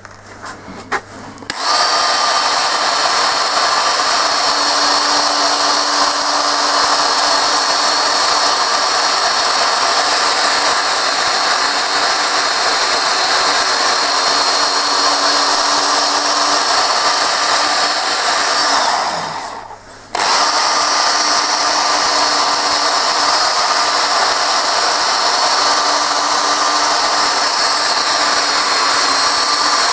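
Electric drill with a sanding disc power-sanding scratches out of a dyed wooden bowl. The drill starts about a second and a half in and runs with a steady whine, winds down around nineteen seconds, then starts again a second later.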